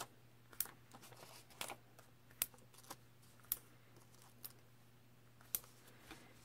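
Cardstock and paper pieces being handled and set down on a work mat: faint, scattered light taps and rustles, roughly one a second, over a faint steady hum.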